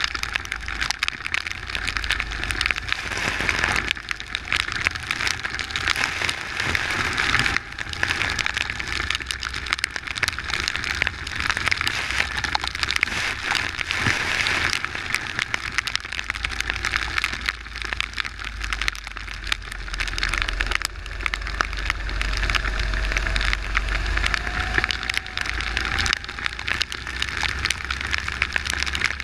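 Steady hiss and crackle of rain and wheel spray hitting the onboard camera of a kart driving on a wet track, over a low rumble, with a faint rising tone about three quarters of the way through.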